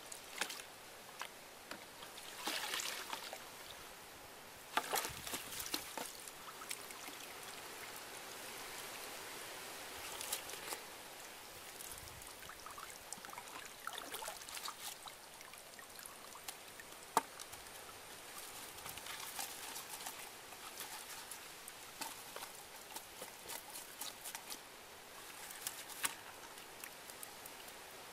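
Water trickling and splashing as a mesh net trap is lifted out of shallow muddy water and its contents shaken into a plastic bucket, with irregular splashes and scattered clicks and rustles.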